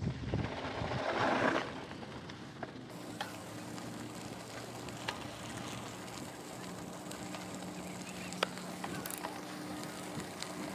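Mountain bike tyres rolling over dirt and gravel with wind buffeting the helmet-camera microphone, louder for the first second or so and then quieter. A faint steady low hum and a few sharp clicks sit underneath.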